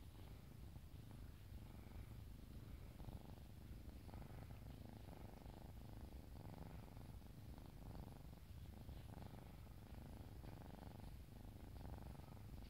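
Bengal cat purring, a faint, steady low purr.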